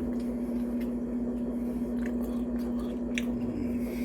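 A person chewing crunchy mini tacos with cheese sauce close to the microphone, with a few sharp mouth clicks, over a steady low hum.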